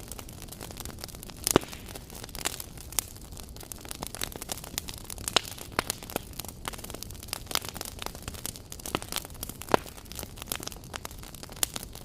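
Wood logs burning in a fireplace: a steady low hiss of flames with frequent sharp crackles and pops, the loudest about a second and a half in and again near the ten-second mark.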